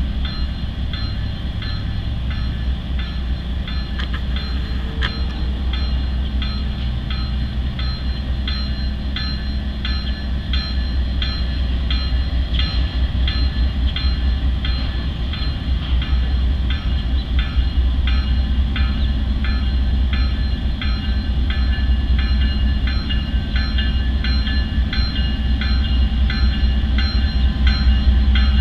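Norfolk Southern freight train rolling slowly, its low rumble growing louder. Ringing high tones pulse over it at an even rhythm of one or two a second.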